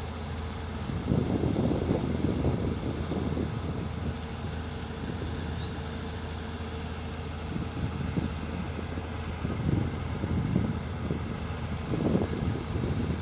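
Excavator's diesel engine running steadily with a constant hum, with irregular low rumbling bursts over it about a second in, around the middle, and near the end.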